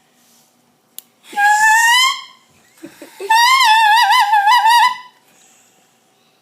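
A reed mouthpiece (reed clamped on with a ligature, played without the instrument) squeaked twice by a beginner: a short squeak that rises a little in pitch, then a longer, wobbly squeak at about the same high pitch.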